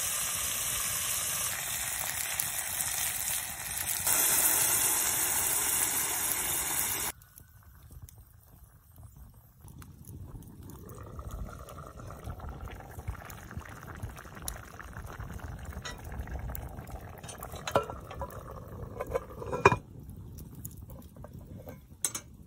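Onions sizzling loudly in a hot cast-iron Dutch oven over a campfire, growing louder about four seconds in. About seven seconds in the sizzle cuts off abruptly, and a quieter, steady bubbling of the covered pot simmering follows, with a couple of sharp metal clinks near the end.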